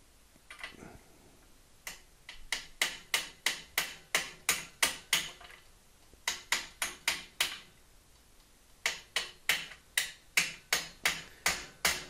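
Light hammer taps on a 1-inch socket driving a sealed cartridge bearing into a Gary Fisher Evolution press-fit bottom bracket shell: a single tap, then three runs of quick sharp taps, about three a second, with short pauses between. The bearing is being tapped fully home because some play was still felt.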